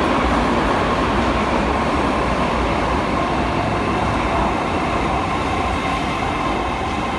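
81-722.1 'Yubileyny' metro train pulling into the station along the platform: a steady rumble of wheels on the rails with several steady electric tones from its traction drive, easing off slightly toward the end as the train slows.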